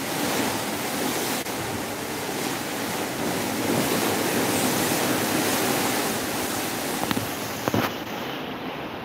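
Seawater rushing and splashing along the hull of a moving boat, with wind on the microphone. Two brief knocks sound near the end.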